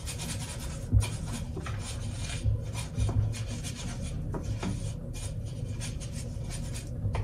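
A brush scrubbing furniture wax into a painted wooden drawer opening: quick, irregular scratchy strokes on wood, with a few light knocks in the first few seconds.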